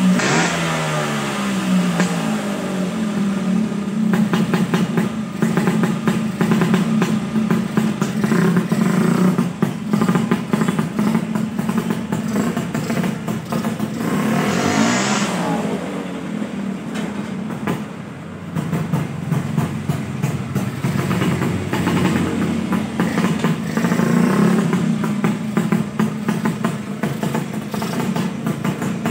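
Two-stroke Vespa scooter engine with a Japanese carburettor and a carbon Yamaha RX-Z reed valve, revving up and down repeatedly as it is ridden away and back on a test ride of the reed-valve setup. The engine was set up to cure weak pulling that felt like a sticking reed.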